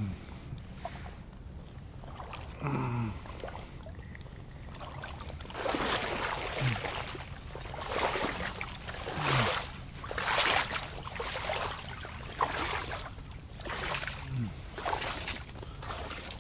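A person wading through shallow water among mangrove roots: sloshing steps, one about every second, starting about five seconds in.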